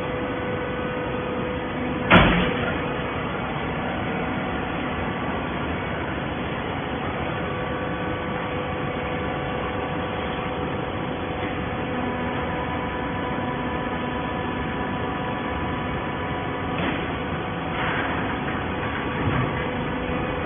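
Waste paper baler running with a steady mechanical hum, with one sharp loud clank about two seconds in and a few lighter knocks near the end.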